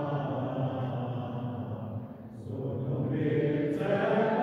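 A group of voices singing a slow hymn together in long held notes, with a short break about two seconds in before the singing resumes.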